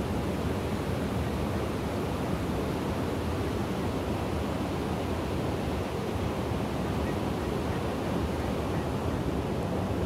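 Steady rush of river water pouring over a low stepped weir.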